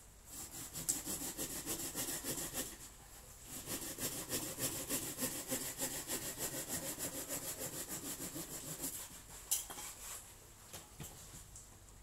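Small hand saw cutting through a thick woody plant stem in quick back-and-forth strokes. The strokes pause briefly about three seconds in and die away after about ten seconds.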